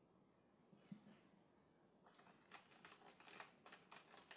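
Faint rustling and small clicks of hands working on a laptop's new LCD panel and lid frame. A light tap comes about a second in, then a run of quick, crinkly clicks from about two seconds in.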